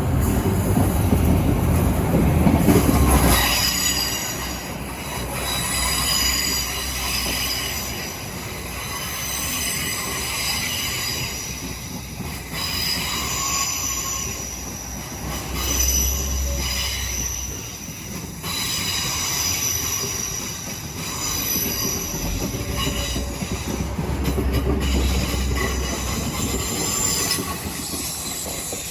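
A train moving through the station with its wheels squealing: several high, steady tones hang over a rumble that is loudest in the first few seconds and then eases.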